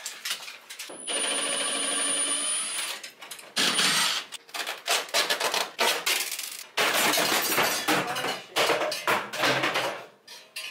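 Metal dryer duct being handled and fitted overhead: rustling, scraping and clattering in several bursts, with a steady hiss for a couple of seconds near the start.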